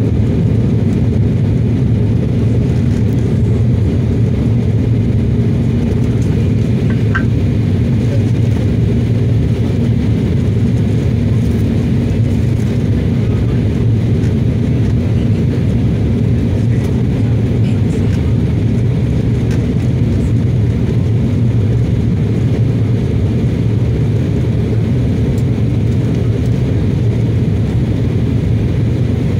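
Steady, deep drone of a jet airliner's engines and airflow heard inside the passenger cabin during the climb after takeoff, even in level throughout.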